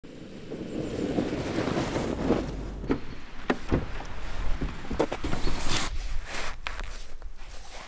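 Car tyres rolling slowly through wet snow and slush, crunching and throwing up snow, with a low rumble. Over the second half come a series of sharp knocks and clicks with rustling.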